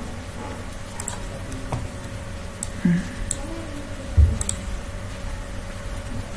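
A few scattered clicks of a computer keyboard and mouse over a faint steady hum, with a low thump about four seconds in.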